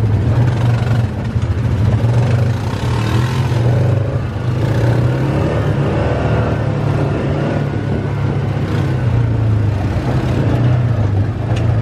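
A vehicle engine running with a steady low drone.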